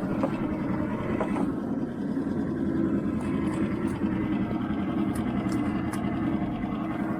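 A 2.5 hp Mercury outboard motor running steadily under way, pushing a small dinghy.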